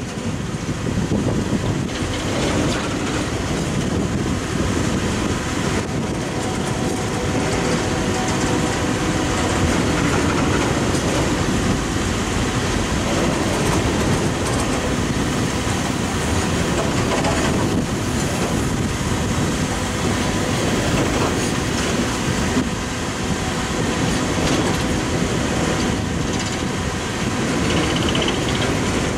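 Coal train's hopper cars rolling past: a steady, loud rumble of steel wheels on the rails.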